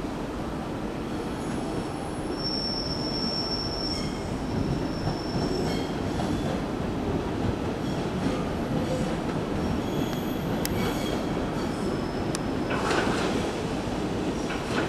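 JR Kyushu 817-series electric train, coupled to an 815-series set, rolling slowly into the station over curved pointwork. Its wheels give a high steady squeal from about two to five seconds in, and it rumbles and clatters over the switches, the clatter growing louder as it draws near.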